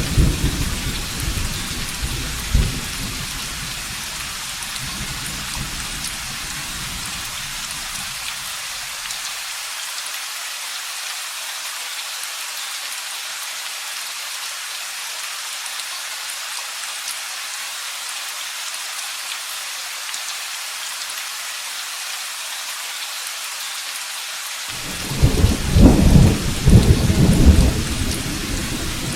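Steady heavy rain with thunder: a rumble at the start dies away over the first few seconds, and a loud roll of thunder breaks in about 25 seconds in and lasts a few seconds.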